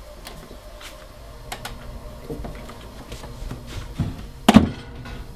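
Someone moving about a small room: light knocks and footsteps, then one loud thump with a short ring about four and a half seconds in.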